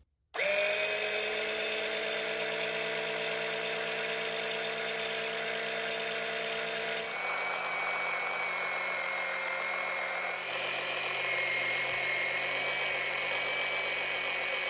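A small electric oil transfer pump, run off the machine's battery, starts about half a second in and runs with a steady whine as it pumps 15W-40 engine oil through clear tubing into the engine. It is going slowly with air in the narrow line. Its tone shifts about seven seconds in and again a few seconds later.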